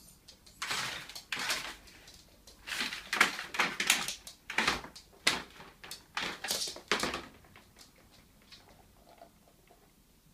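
Plastic laundry basket scraping and sliding across a wood-effect floor in a series of short pushes as a dog noses at the ball inside it. The scraping stops about seven seconds in, leaving a few faint knocks.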